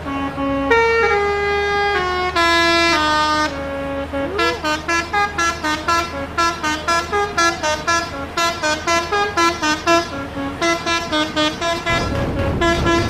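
Telolet bus horn, a multi-tone musical air horn, playing a tune: a few long notes stepping in pitch, then from about four seconds in a fast run of short notes, about three or four a second. A low rumble comes in under it near the end.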